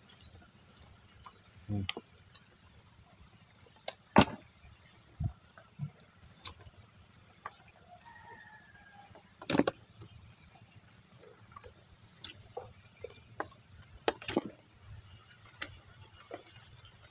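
Wet fish and prawns being shifted and picked through by hand in a plastic tub, giving scattered soft clicks and knocks, a few louder ones, over a steady high insect drone.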